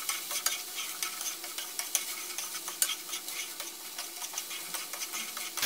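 Shredded chicken, sweet corn and shiitake mushrooms sizzling in a frying pan while being stir-fried with chopsticks, with many light clicks of the chopsticks against the pan.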